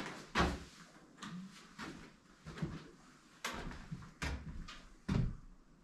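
Footsteps on a bare wooden plank floor, then several knocks and clunks as a paint can is picked up and handled.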